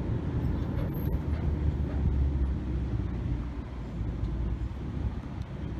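Open-sided tour tram rolling along a town street, heard from aboard: a steady low rumble of its tow vehicle's engine and tyres.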